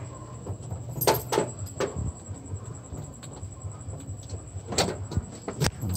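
Several short knocks and clatters over a steady low hum.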